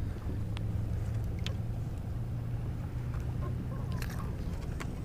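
Steady low hum of a boat motor running, with a few light clicks scattered through it.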